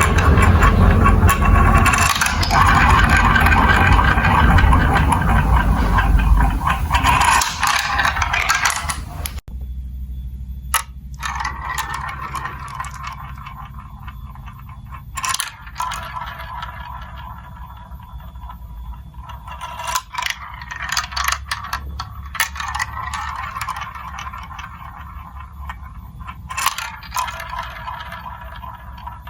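Marbles rolling and clattering through a plastic building-block marble run. It starts as a loud, dense rumble, then after a sudden change about a third of the way in it becomes quieter rolling with scattered sharp clicks.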